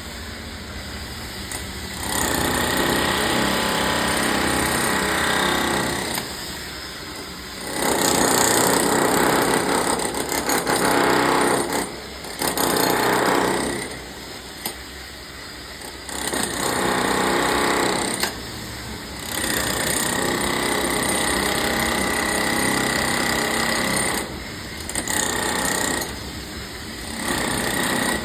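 Hammer drill boring into a concrete slab, run in about seven spells of a few seconds each with short pauses between.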